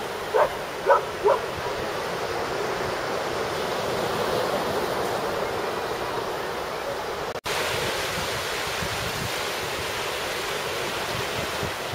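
Surf washing on a beach, with wind on the microphone: a steady rushing noise. Three short, sharp sounds come close together near the start, and the sound drops out for an instant a little past halfway.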